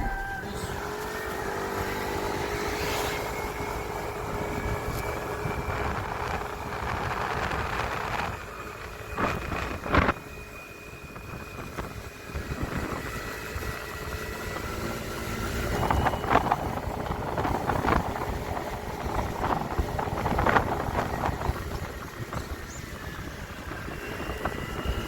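Vehicle noise: a steady low rumble, with a few sharp knocks about ten seconds in and a run of brief clicks and bangs later on.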